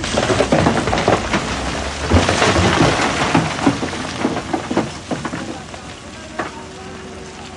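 Black stone clattering and cracking as a primary jaw crusher breaks it: a dense rattle of knocks over a rumble, loudest a couple of seconds in and easing off after about five seconds, leaving a steady machine hum.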